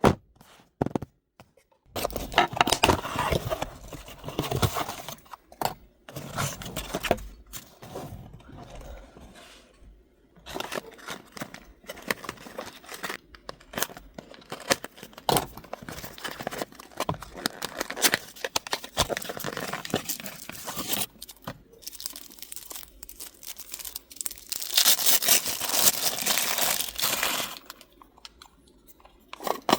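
Hands opening a subscription box's packaging: paper and plastic tearing and crinkling in bursts, with small clicks and taps, starting about two seconds in. The longest, loudest stretch of crinkling comes near the end.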